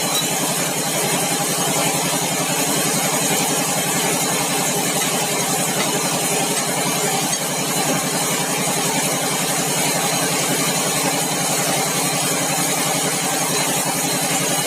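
Sawmill's engine running steadily at an even speed.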